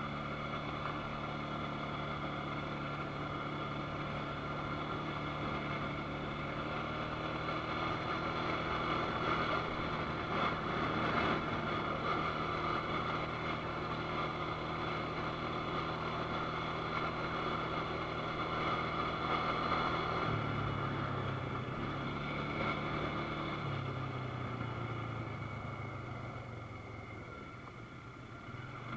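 ATV engine running steadily under way. Its note drops and shifts about twenty seconds in, as the engine speed changes.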